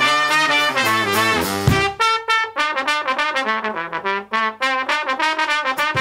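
Live brass band playing, trumpet to the fore with other horns over drums. About two seconds in, the drums drop out and the horns carry on alone in short, separated notes.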